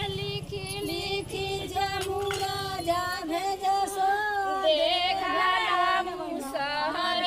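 Women's voices singing a traditional Godhan Kutai festival song, with a low steady hum underneath that stops about three seconds in.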